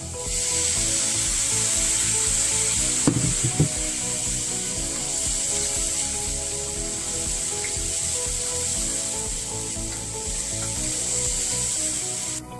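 Ground meat, diced potato and carrot sizzling in a frying pan, with a steady hiss, while a wooden spatula stirs and scrapes the food. There are a couple of knocks of the spatula against the pan about three seconds in, and the sizzle cuts off suddenly near the end.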